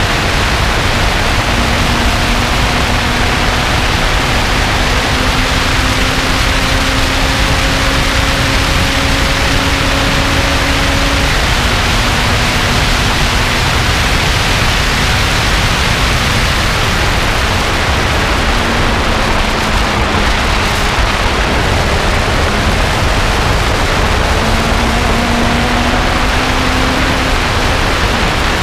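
Lotus sports car at speed on track: a loud, steady rush of wind and road noise covers a faint engine note. The engine note climbs slowly, drops about 11 seconds in, and climbs again near the end.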